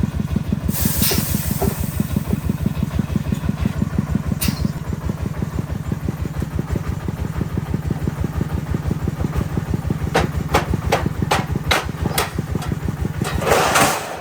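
A vehicle engine idling steadily with a fast, even pulse. A few sharp clicks come about ten seconds in, and a short rush of noise near the end.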